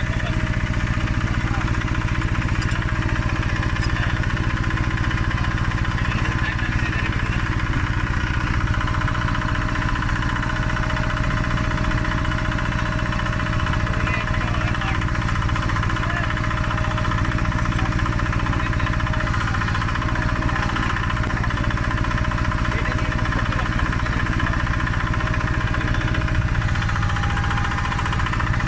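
Engine of a borehole drilling rig running steadily at constant speed, an even drone with no change in pitch.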